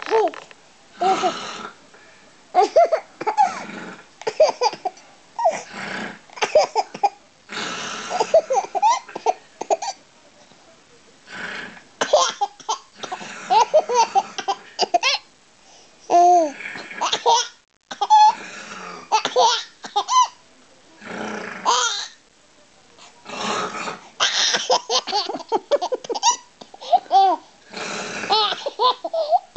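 A baby laughing in repeated bouts of giggles and belly laughs, with short pauses between them.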